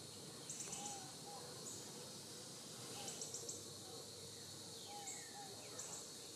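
Faint outdoor ambience of insects chirping in short, high-pitched pulsed bursts about once a second, over a soft steady hiss, with a few faint lower calls.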